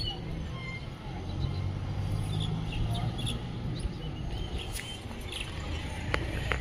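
Wind buffeting the microphone as a low rumble, with faint bird chirps now and then.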